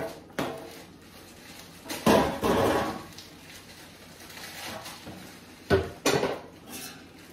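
Metal baking pan being handled, knocking and clattering: a short clatter about two seconds in and two sharp knocks near six seconds.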